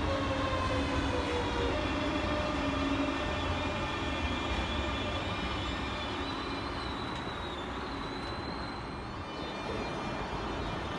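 Great Northern electric multiple unit moving slowly along the line. Its traction whine falls in pitch over the first two seconds, over a steady low rumble of wheels on rail. Several thin high tones run throughout, and another high tone rises in about six seconds in.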